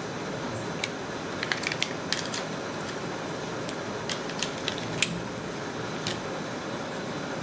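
Scattered sharp little clicks and taps of a pair of plastic in-ear earbuds being handled and pulled apart in the fingers, some in quick clusters, over a steady background hiss.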